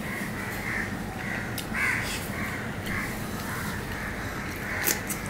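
A crow cawing over and over, short rough calls several times a second, with a few sharp clicks in between.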